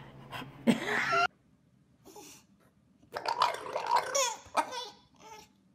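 Bulldogs vocalizing in pitched, talking-like grumbles. A short burst breaks off about a second in, and a longer one about three seconds in slides up and down in pitch.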